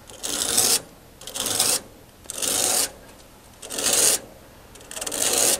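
A metal-toothed fin comb rasping down through the thin aluminum fins of an A/C condenser coil, five half-second strokes about a second apart, straightening bent fins.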